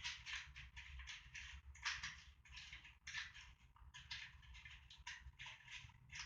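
Faint, irregular scratching and rubbing strokes, several a second, from hand work during the air-conditioner installation.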